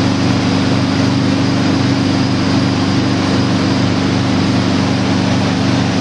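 Motorboat engine running steadily under way at towing speed, over the rush of water from the wake.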